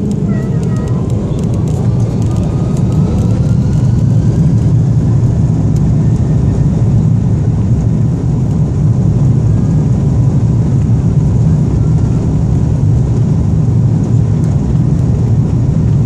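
Cabin noise inside an Airbus A330-223 taxiing on the ground: a steady low rumble from its Pratt & Whitney PW4000 engines and the rolling airframe, with a faint whine rising in pitch over the first few seconds.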